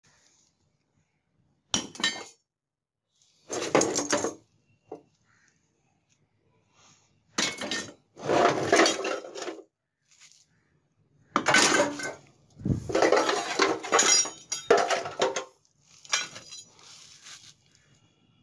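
Rusty scrap metal being rummaged through by hand: clanks, clinks and scrapes of tins, pipes and old tools knocking against each other, in five bursts with short silences between.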